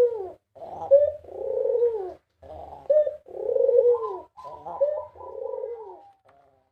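A white ringneck dove (puter) cooing over and over, each phrase a short note followed by a longer falling coo, about three phrases in a row.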